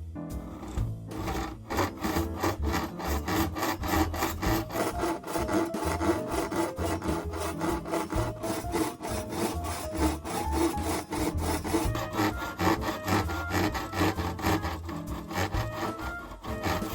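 Hand saw cutting through hard Japanese oak (nara) in quick, even back-and-forth strokes.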